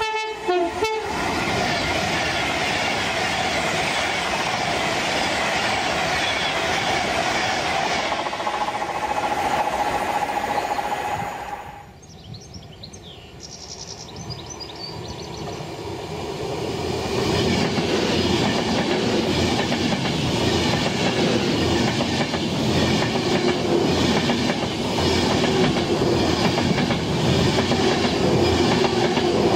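Class 390 Pendolino electric trains running through at speed. The first sounds a brief horn note at the start and its rush of wheels on rail carries on until it cuts off suddenly about 12 seconds in. A second Pendolino then draws near and passes close, its rush and clatter of wheels swelling and staying loud to the end.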